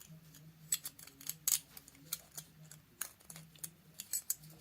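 Irregular light clicks and taps as a miner's lamp reflector is gently worked around its seat on the glass plate until it drops into place, with a faint steady hum underneath.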